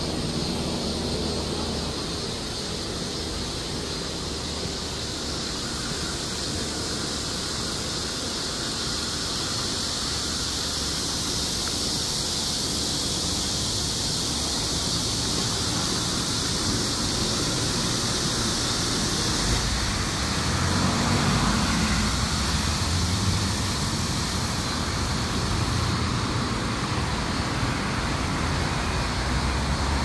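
Cicadas buzzing in one continuous high-pitched drone, over the low noise of passing road traffic that swells about twenty seconds in.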